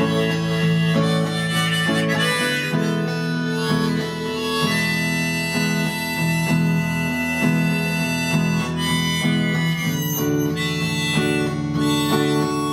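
Live blues instrumental passage between sung verses: long held melody notes over a plucked, rhythmic accompaniment, with no singing.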